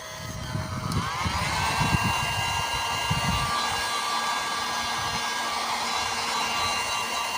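Electric hot-air blower switched on about a second in, its motor whine rising in pitch and then running steadily over a rushing air hiss, used to heat the hand-made battery cable. Low handling knocks in the first few seconds.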